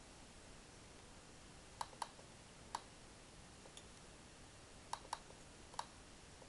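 Computer mouse button clicking: about seven short, sharp clicks, two of them in quick pairs like double-clicks, over a faint steady hiss.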